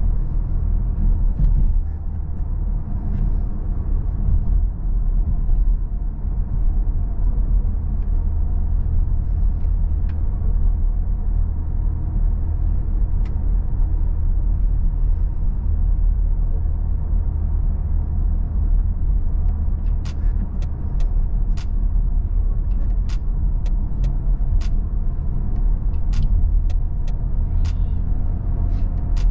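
Volkswagen Tiguan 1.4 TSI turbocharged four-cylinder petrol engine and road noise while driving: a steady low rumble. In the last third there is a run of sharp, irregularly spaced clicks.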